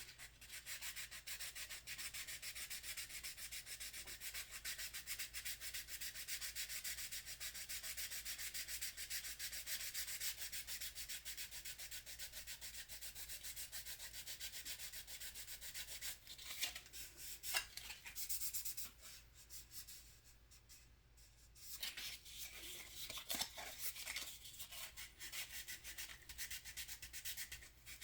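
Fast back-and-forth rubbing of sandpaper over hardened putty filler on a plastic scale-model car body, steady for the first half, then in shorter spells with a brief pause about two-thirds of the way in.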